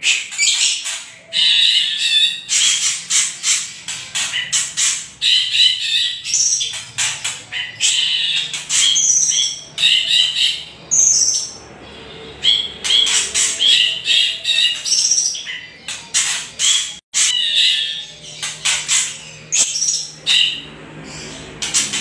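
White-rumped shama and greater green leafbird giving rapid, harsh rattling and chattering 'kretekan' calls in bursts separated by short pauses, with a few higher whistled notes. These are the birds' excited, aggressive calls.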